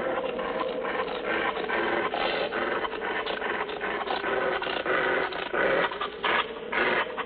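Werewolf sound effect: a beast growling and snarling in rough, rapid pulses.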